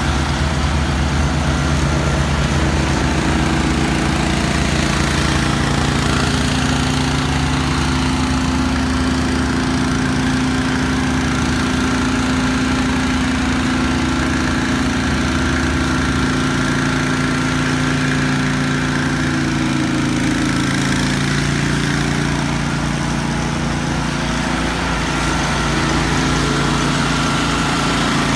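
Small engine on a pressure-washing cart running steadily under load, with the hiss of a rotary surface cleaner spraying onto wet concrete. The engine's note shifts slightly about halfway through.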